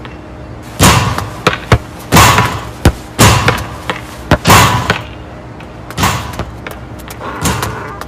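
A series of loud, irregular thumps and knocks, about ten in all, some coming in quick pairs, each with a short ringing tail; the last one falls about six seconds in.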